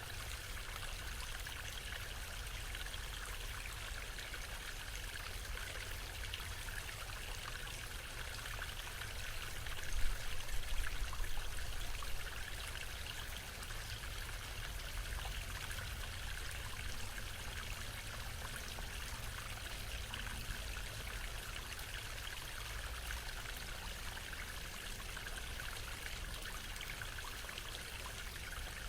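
Waterfall rushing in a steady, even hiss of falling water with a low rumble underneath. About ten seconds in, a louder low rumble swells for roughly two seconds.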